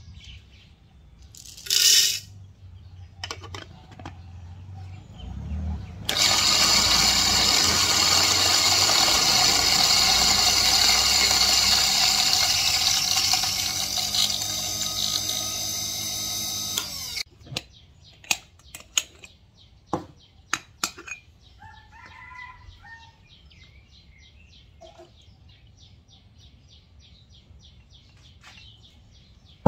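Electric coffee grinder running for about eleven seconds, a steady motor whine that slows and drops in pitch as it shuts off. Sharp clicks and knocks come before and after it.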